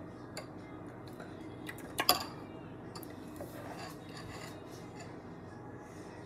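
Metal spoon clinking against a ceramic bowl a few times, the loudest knock about two seconds in.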